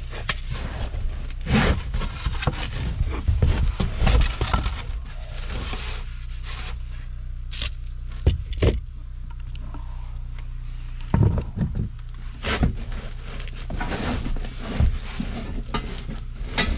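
Work-handling noise: scattered knocks, clicks and scrapes of tools and foam board being handled, over a steady low hum.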